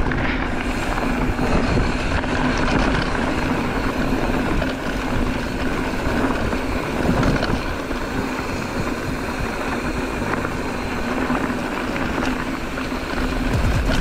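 Steady wind rush and rumble on the microphone of a camera carried on a moving bicycle, with tyre noise from the trail underneath.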